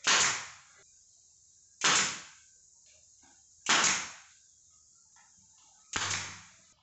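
Pneumatic nail gun firing four times, about two seconds apart, each sharp shot trailing off in a brief hiss as it fastens cabinet board.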